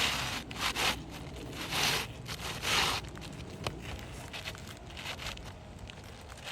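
Asphalt shingles being handled on a roof, with scraping and rustling: four short scratchy rasps in the first three seconds, then quieter rubbing.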